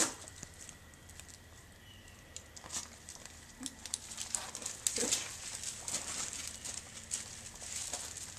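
Paws and shoes crunching on gravel as a borzoi and its handler walk: light, irregular crunches that grow busier from about four seconds in.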